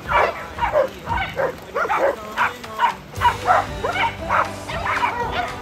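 Several dogs barking and yipping in quick succession, about three or four calls a second.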